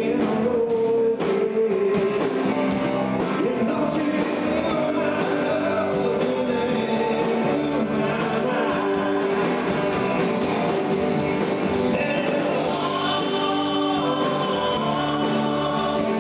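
Live band music in a country-rock style, with a lead vocal singing over the band.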